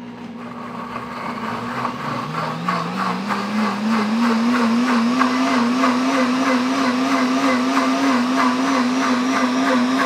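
Pampered Chef Deluxe Cooking Blender running on custom blend at speed 6, puréeing soaked dried chilies in water. The motor's pitch climbs over the first few seconds, then holds steady with a slight wobble.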